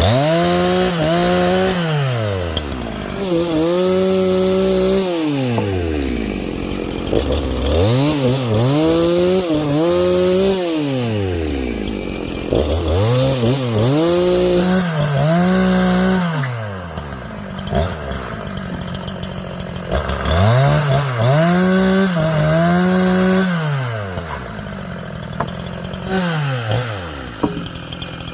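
Two-stroke chainsaw revving up and down over and over: each time its pitch climbs to full throttle, holds briefly, then falls back toward idle.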